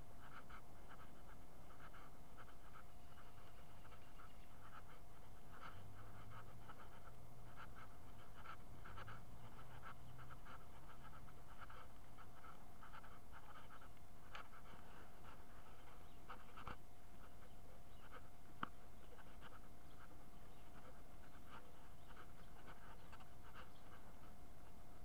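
A dog panting in a quick, even rhythm, about two to three breaths a second, with one sharp click about three-quarters of the way through.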